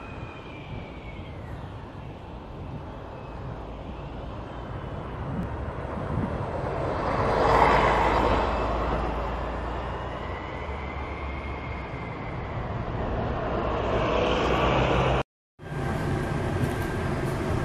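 Diesel bus engine pulling away and running under load, with a loud turbocharger whistle gliding up and down in pitch over the engine rumble. The sound swells to its loudest about halfway through, and drops out briefly near the end.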